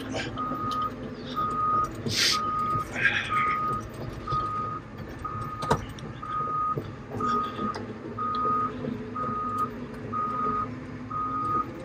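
Caterpillar excavator's travel alarm beeping about once a second while the machine tracks, over its diesel engine running steadily. One sharp knock about six seconds in.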